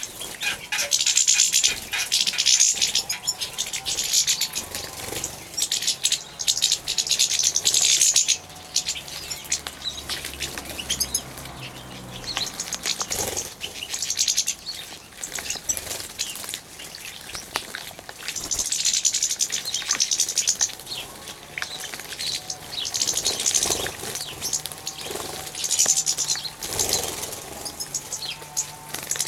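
European goldfinches and serins bathing in a shallow tub of water, splashing and fluttering their wings in bursts of one to three seconds, several times over.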